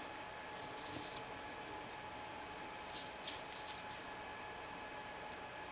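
Faint rustling of ribbon being handled with fingers and tweezers, in a few short bursts about a second in and again around three seconds in, over a faint steady hum.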